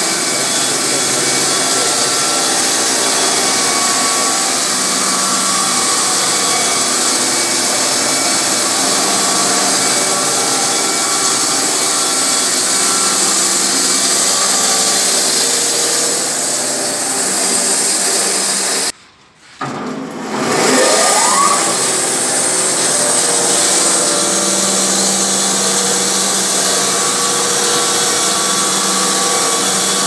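Rhino 500 band sawmill cutting through a log: its motor drones steadily as the band blade runs through the wood. The sound drops out briefly about two-thirds of the way through, then a whine rises in pitch as the mill comes back up to speed.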